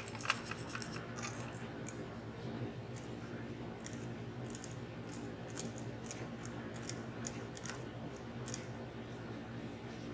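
Quill pen's metal nib scratching on glass in short, irregular strokes while drawing fine lines of black enamel paste, with a steady low hum underneath.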